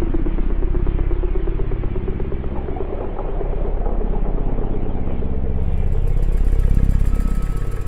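Dark ambient drone music: a dense, low drone with a fast, even flutter and a hazy upper layer, swelling slightly near the end, while a faint high hiss comes in past the middle.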